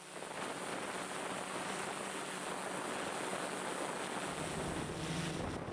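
Steady rushing noise with a faint low hum under it.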